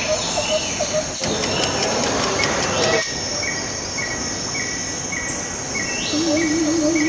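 Chirping night insects, like crickets, repeating short evenly spaced chirps over a steady hiss. About six seconds in, a wavering electronic tone, like a theremin, comes in.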